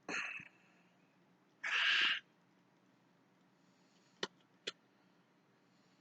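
Handling noise while a lamp socket is being taken apart: a short hiss at the start and a louder one about two seconds in, then two sharp clicks about half a second apart near the end.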